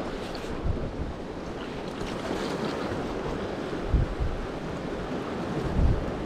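Sea surf washing against a rocky shore, a steady rushing noise, with gusts of wind buffeting the microphone, strongest about four and six seconds in.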